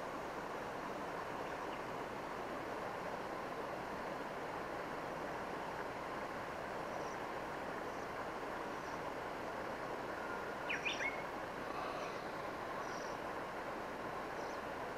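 Steady outdoor background noise, with a small bird chirping briefly about ten and a half seconds in.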